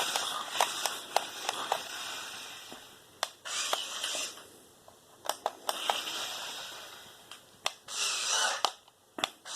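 Toy RC stunt car's small electric drive motors whirring in short bursts of about half a second, three times, with sharp clicks and knocks of its plastic body and wheels in between.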